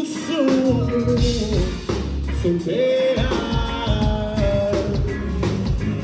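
Live rock band playing: electric guitars, bass guitar and drum kit, with a sung melody carried over the band.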